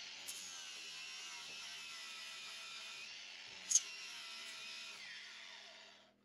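Small electric angle grinder running, its disc grinding down a nail head that stands proud on a hull frame. A short, sharp high screech comes about three and three-quarter seconds in. Near the end the whine falls in pitch as the grinder winds down.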